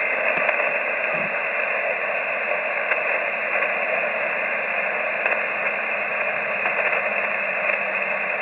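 Steady hiss from a Yaesu FT-817ND transceiver's receiver on 10-metre upper sideband: band noise through the narrow voice filter on an empty frequency, with no signal coming in.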